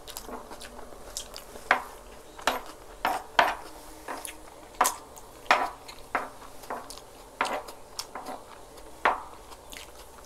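Close-up eating sounds: chewing and mouth noises, with irregular sharp clicks of a metal spoon and fork against a wooden board as rice is scooped up.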